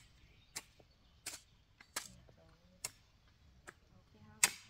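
Hoe blade chopping into dry, stony garden soil: about six sharp strikes, one every 0.7 seconds or so, the last one loudest.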